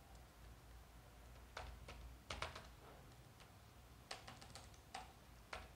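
Faint computer keyboard typing: short, irregular runs of key clicks with pauses between them.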